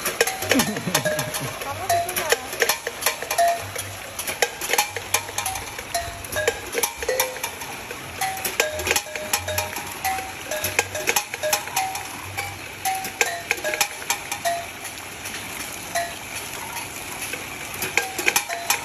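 Metal chimes on a water-play installation ringing in short, irregular notes of several different pitches as water jets strike them. Spraying and splashing water runs underneath.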